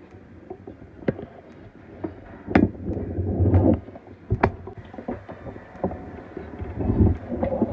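Rustling, rumbling handling noise with several sharp clicks and knocks, louder in two stretches, one in the middle and one near the end.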